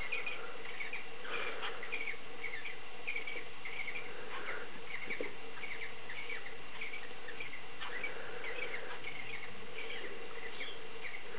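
A pair of cockatiels mating, giving a steady run of short, high, squeaky chirps, several a second, over a steady low hum.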